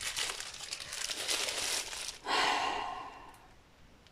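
Plastic packaging, a bubble-lined mailer, rustling and crinkling as it is picked up and handled. A short louder swish comes about two seconds in, then the rustling dies away.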